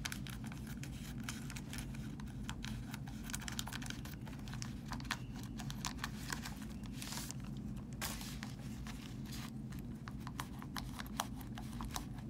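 Black plastic mystery bag handled and cut open with scissors: irregular clicks and crinkling, with a longer rustle about seven seconds in. The bag is hard to cut. A steady low room hum runs underneath.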